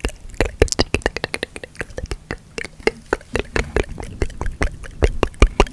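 Close-miked wet mouth and tongue clicking, a rapid irregular string of sharp clicks, several a second, throughout.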